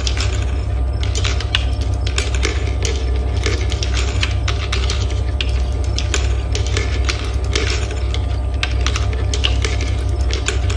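Marbles rolling and clattering down a plastic marble run track in a dense, irregular stream of clicks, over a steady low hum.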